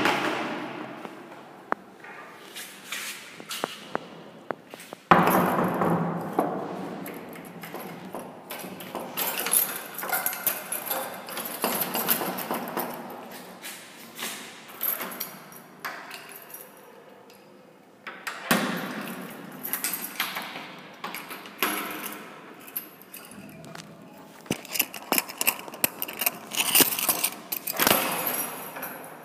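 Door hardware being worked by hand: a brass sliding bolt and metal latch on a wooden door, with many sharp metal clicks, clinks and knocks. Louder rustling and bumping comes in bursts, about five seconds in and again after eighteen seconds.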